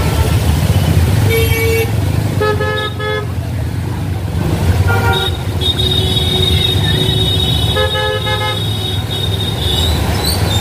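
Vehicle horns honking in road traffic: a short blast, a quick double beep, then two more blasts a few seconds apart, over a steady low rumble of traffic and moving air. A thin, steady high tone holds through the second half.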